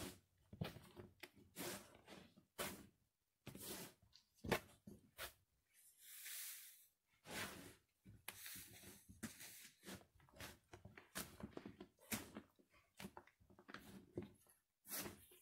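Bare feet stomping on and squashing torn-up white bread on a tile floor: soft, irregular squishes and taps, one or two a second, with a longer rustle about six seconds in.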